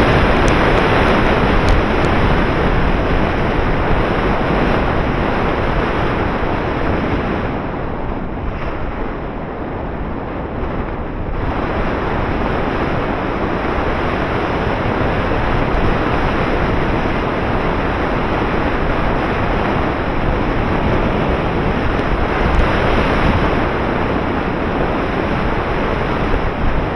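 Wind rushing over the microphone of a Runcam 6 action camera mounted on an RC model plane's wing in flight: a loud, steady rush of airflow noise. It eases for a few seconds about a third of the way in, then returns.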